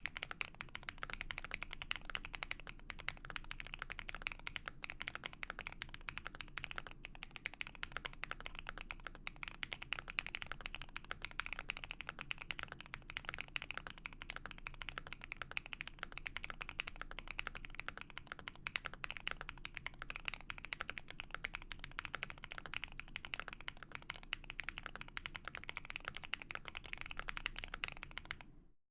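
Continuous fast typing on a Thera75 V2 aluminium mechanical keyboard with Gateron Smoothie Silver linear switches, a polycarbonate plate, full internal foam and plate-mounted stabilisers: a dense stream of keystrokes that stops abruptly near the end.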